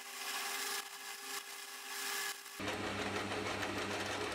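Hafco AL250G metal lathe facing the end of a mild steel bar with a carbide tool: cutting noise in two or three passes over a steady whine from the lathe. About two and a half seconds in it changes abruptly to a lower, steady hum of the lathe running while a centre drill in the tailstock chuck works the end of the bar.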